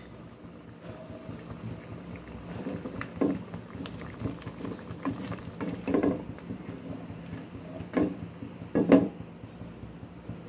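Watery paneer curry gravy bubbling in a wok just after water was added, with a spatula stirring and scraping it, knocking against the pan a few times; the loudest knock comes about nine seconds in.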